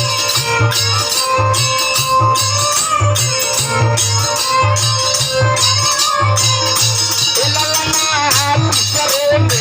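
Instrumental interlude of a Bhojpuri sohar folk song: a melody instrument plays over a steady drum beat and shaken jingling percussion, between sung lines.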